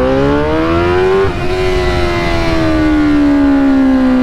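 2003 Suzuki GSX-R 600's inline-four engine accelerating hard, revs climbing for about a second, then a gear change and the revs slowly falling. It pulls cleanly without stuttering, the sign that the new fuel pump has brought it back to life.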